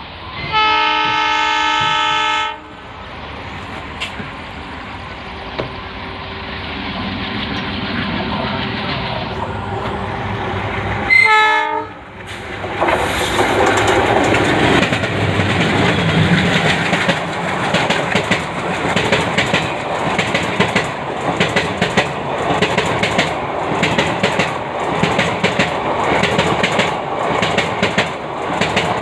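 Diesel locomotive horn sounds a blast of about two seconds, then rail noise builds as the train approaches and a second, short blast comes about eleven seconds in. From then on a passenger express passes at speed, loud and steady, with rapid clickety-clack of its wheels over the rail joints.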